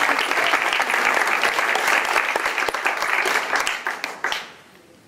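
Audience applauding, the clapping fading away about four seconds in.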